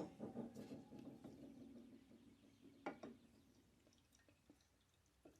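A metal tool knocks against metal and rings out with a few tones that fade over about two seconds, followed by a single sharp click about three seconds in.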